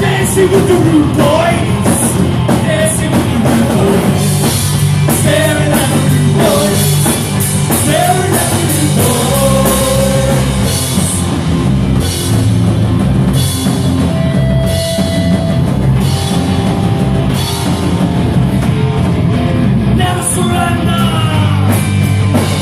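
Punk rock band playing live, with electric guitar, bass guitar and a drum kit, and a singer's vocals over the top for much of the time.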